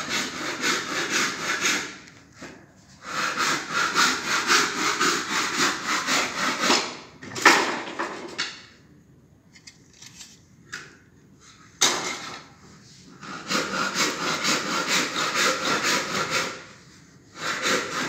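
Rapid rhythmic rasping strokes in bursts of a few seconds, with short pauses between them and a sharp knock about twelve seconds in.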